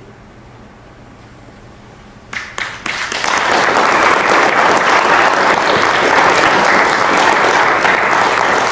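Audience applauding: a few scattered claps about two seconds in, swelling within a second into full, steady applause.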